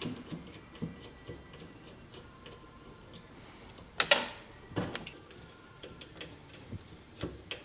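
Hand tool working the shifter bolts on a Polaris RZR: light ticking and small metal clicks, with a sharp ringing metal clink about four seconds in and a few louder clicks after it.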